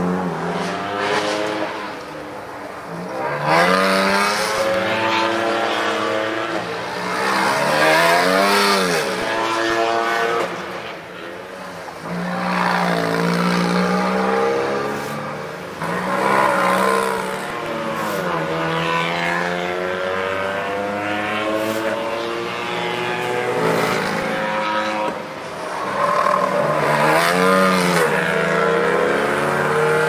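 Rally car engines driven hard through a tight cone course: the revs climb and drop over and over with gear changes, with the odd tyre squeal.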